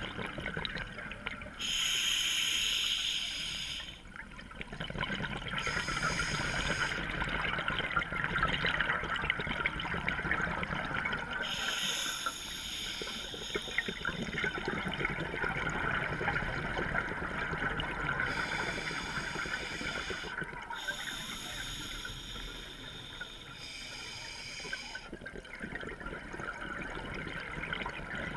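Scuba diver breathing through a regulator, recorded underwater: hissing inhalations every few seconds, with bubbling exhalations between them.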